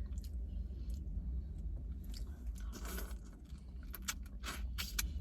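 Close-up chewing and mouth sounds of someone eating seafood, with sharp clicks and short crackles from the food and its shells being handled, coming quicker near the end, over a low steady hum.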